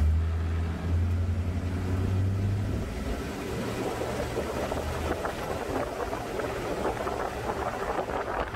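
Amphibious duck tour vehicle's engine: a strong, steady low hum as it pulls away from a stop, giving way after about three seconds to wind and road noise with a weaker engine hum as it drives along.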